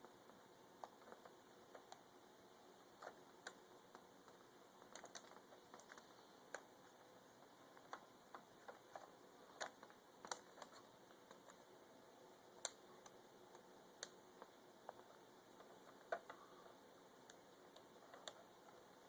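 Faint, irregular small clicks and taps from hands fitting a laptop keyboard's ribbon cable into its connector and handling the keyboard, with a few sharper clicks a little past the middle.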